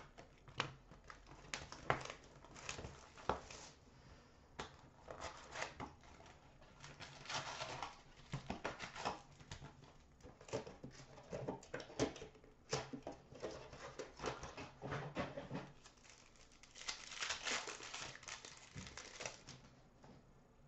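A cardboard hobby box of hockey cards being opened and its packs handled, with scattered taps and rustles. Near the end there is a longer spell of crinkling and tearing as a pack wrapper is ripped open.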